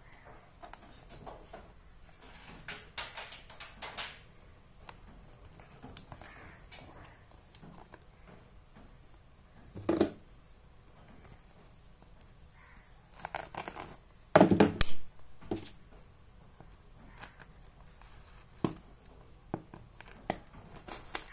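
A plastic-wrapped cardboard parcel being handled: the film crinkles and the box scuffs and knocks, with a loud knock about ten seconds in and the loudest bumps around fifteen seconds. Near the end a knife starts slitting the plastic wrap, with a few sharp clicks.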